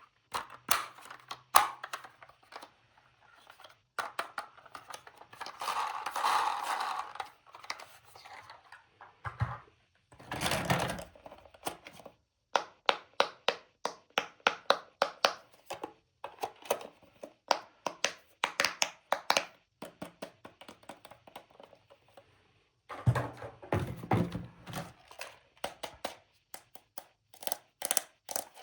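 Toy pieces and packaging being handled during an unboxing: many small clicks and taps, a quick run of clicks in the middle, and a few short stretches of rustling.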